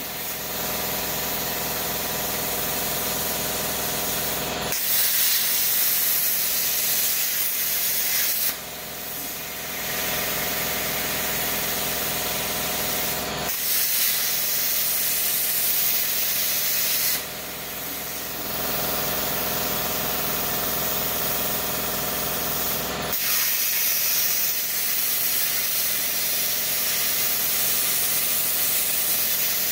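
ArcDroid CNC plasma cutter's torch cutting through a steel handsaw blade: a loud, steady rushing hiss of the plasma arc and its air. It briefly dips twice, about nine seconds apart, as the cut stops and picks up again between letters.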